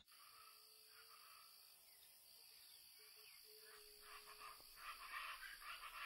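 Faint natural ambience of insects trilling: a steady, high-pitched chirring, with faint irregular chirps joining in over the last two seconds.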